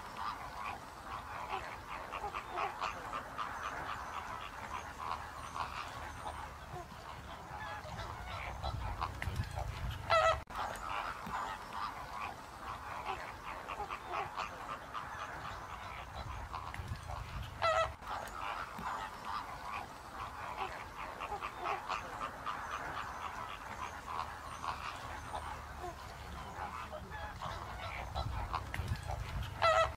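A large flock of water birds calling without pause: a dense chatter of goose-like honking calls, with a single louder, clearer honk about ten seconds in, another about eight seconds later, and one more at the very end.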